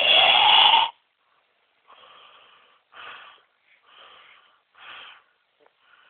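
A person snoring: one loud, rasping snore with a rising pitch in the first second, followed by a run of short, much quieter wheezing breaths about once a second.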